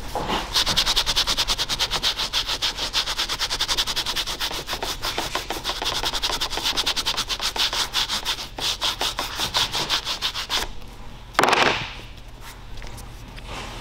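A stiff plastic pad-cleaning brush scrubbing the fibres of a microfiber cutting pad on a polisher's backing plate, in rapid, even scratchy strokes. The strokes stop near the end, followed by one louder short rub.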